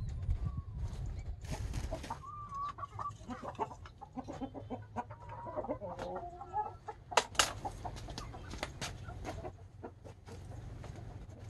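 A chicken clucking and squawking in wavering, broken calls for several seconds, with scattered sharp clicks and two loud knocks about seven seconds in. A low rumble sits under the first couple of seconds.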